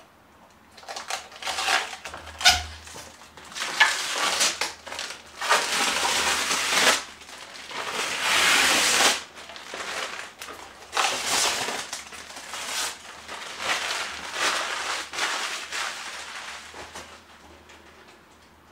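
Clear plastic film crinkling and crackling as it is peeled off a new cutting machine and bunched up in the hands, in irregular noisy bursts with short pauses. It starts about a second in and thins out near the end.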